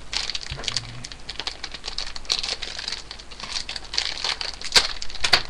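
Toy packaging crinkling as it is handled, with a run of small irregular clicks and two sharper snaps near the end.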